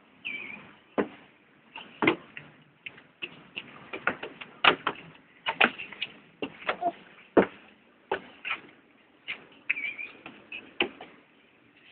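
Irregular knocks and taps of a toddler's hands and shoes on wooden stair treads as he climbs, several a second at times, a few sharper than the rest, with a couple of short high chirps.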